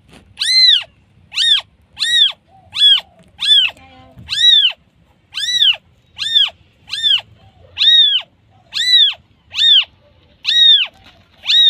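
A newborn kitten, its eyes still closed, meowing over and over for its mother. It gives a steady series of high, thin cries, a little more than one a second, each rising and then falling in pitch.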